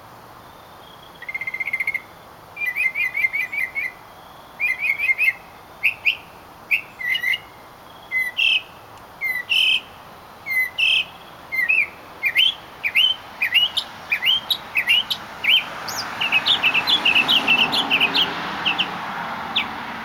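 Northern mockingbird singing, really loud: a run of varied chirping phrases, first as quick strings of repeated notes, then as single sharp upslurred whistles about once a second, coming faster near the end. A broad rushing noise rises underneath during the last few seconds.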